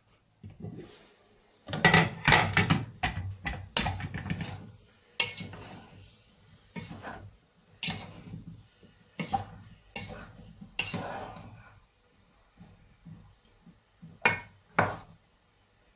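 A wooden spatula stirring and scraping chopped vegetables in a granite-coated cooking pot, in an irregular run of scrapes and knocks. The pot's glass lid clatters as it is lifted off and set down on the cooktop.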